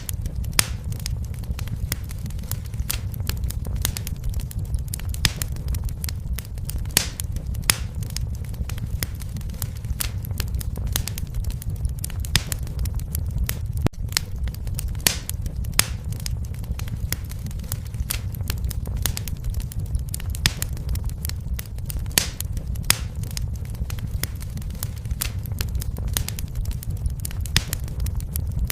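Wood fire burning in a fireplace: a steady low rumble of flame with frequent sharp, irregular crackles and pops.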